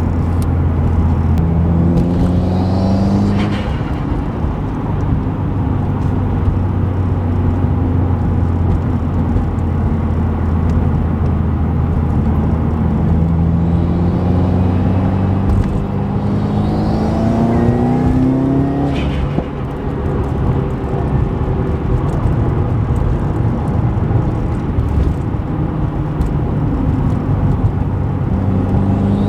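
Subaru WRX's turbocharged flat-four pulling under throttle twice, its pitch rising with a thin whistle above it. Each pull ends with a short rush of noise as the revs drop, about three seconds in and again near nineteen seconds, when the Boomba bypass valve vents and gives the turbo flutter. Between the pulls the engine runs with a steady low drone.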